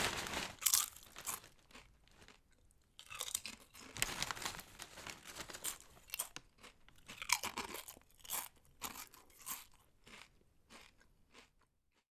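Potato chips being bitten and chewed up close: crisp crunches in bursts of chewing, fading out near the end.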